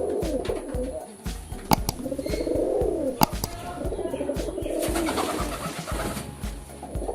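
Male pigeon cooing over and over, each coo swelling up and falling away. Two sharp clicks come in the first half.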